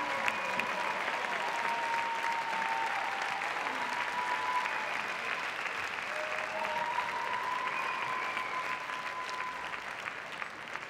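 Large audience applauding steadily, the applause slowly dying down toward the end.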